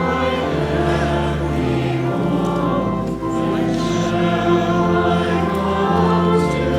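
A group of voices singing a hymn over sustained organ chords, the harmony changing every second or so above steady bass notes.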